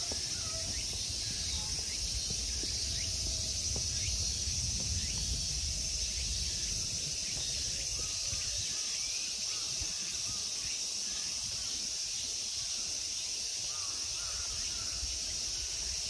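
A steady, high-pitched chorus of summer insects singing without a break, over a low rumble, with a few faint short chirps on top.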